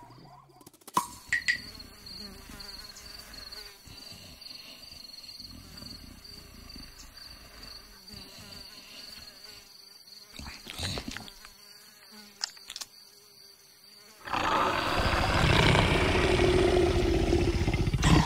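Insects buzzing in a steady high drone, with a few faint clicks. About fourteen seconds in, a loud rough growl from a leopard takes over.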